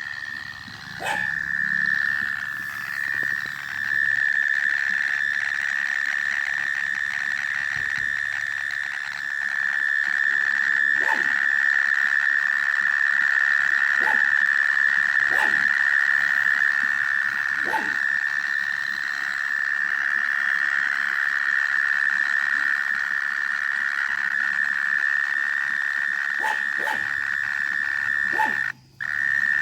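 A continuous, steady, high-pitched trill from an unseen animal calling from underground, held at one pitch throughout, with a few short falling chirps laid over it.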